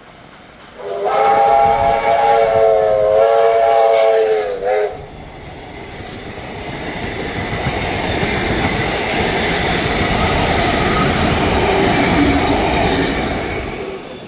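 Victorian Railways R class steam locomotive R761 sounding a long whistle of about four seconds, then a short toot. The train then passes, its rumble building to a loud peak and fading near the end.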